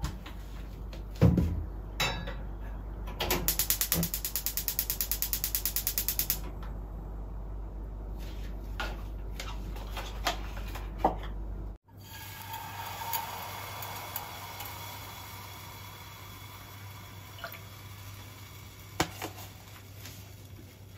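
A gas stove burner's igniter clicking rapidly for about three seconds as the burner is lit, after a couple of knocks of the pan on the grate. Then a quieter steady background with a low hum.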